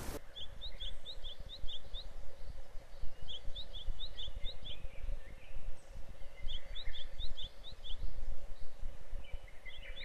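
Common kingfisher calling: three runs of short, sharp, high notes, about five a second, with a few more notes near the end. Under them is a steady low outdoor rumble.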